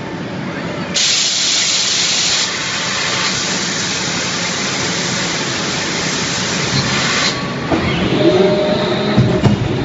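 Forging line machinery: a loud hiss of a compressed-air blast starts suddenly about a second in, is strongest for the first second and a half, and cuts off about seven seconds in. Machinery squealing and a few sharp knocks follow near the end.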